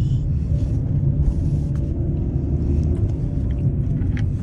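A 2012 Hyundai Accent driving, heard from inside the cabin as a steady low rumble of engine and road noise, with a few faint clicks.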